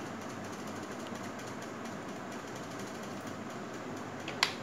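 Steady low background hiss, with a faint click at the very start and one sharp click about four seconds in, as a link is opened in the browser.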